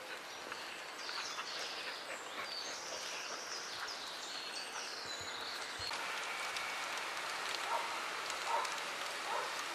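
Outdoor ambience: birds chirping over a steady hiss of background noise, the chirps thinning out about six seconds in.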